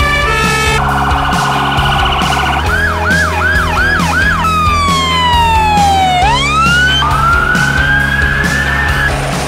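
Electronic emergency-vehicle siren switching through several tones: a two-tone hi-lo, then a fast warble, then five short rising whoops, then one long falling sweep that turns upward, and finally a slow rising wail.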